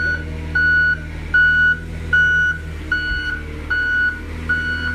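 An earth-moving machine's backup alarm beeping steadily, a little over one beep a second, over the low, even running of its diesel engine while it clears landslide mud from a lane.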